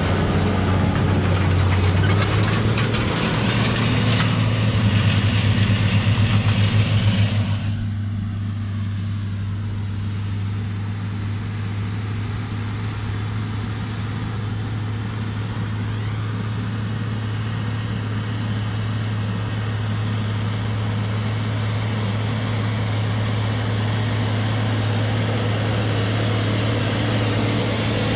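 Agco Star 8360 tractor's 14-litre Cummins diesel running steadily under load while pulling a vertical-till tool through the ground. About eight seconds in, the sound changes abruptly to a quieter, steady low hum.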